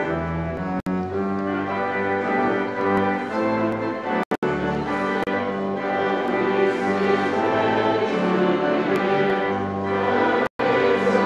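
Church organ playing slow, sustained chords that change about once a second. The sound cuts out for an instant three times: about a second in, near the middle and near the end.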